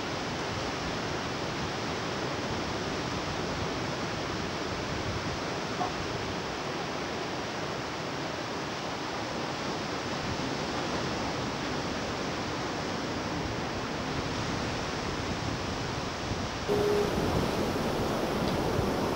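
Ocean surf washing steadily on a beach as an even rush of noise. Near the end it cuts abruptly to a slightly louder, brighter surf sound.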